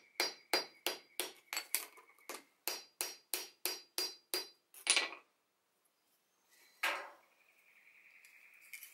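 Ball-peen hammer rapidly tapping a steel chainsaw bar on an anvil, about four light ringing strikes a second, peening the bar's rails inward to close up a groove worn too wide. A harder strike near five seconds ends the run, and after a pause a single knock comes about seven seconds in.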